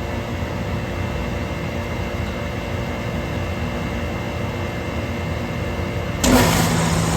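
Steady hum of running compressor-room machinery, then about six seconds in an industrial air compressor kicks on abruptly with a loud start and settles into a steady low drone.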